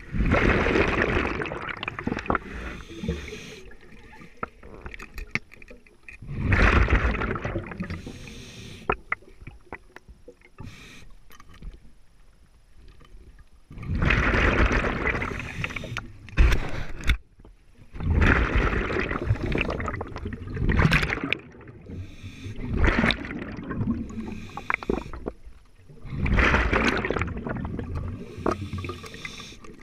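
Scuba diver breathing underwater: a loud rush of exhaled bubbles every four to six seconds, with scattered clicks and knocks between breaths.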